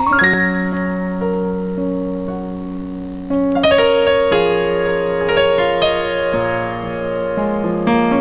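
Electronic keyboard played with a piano sound in a slow instrumental passage of held chords and single notes. About three and a half seconds in, louder and fuller chords come in.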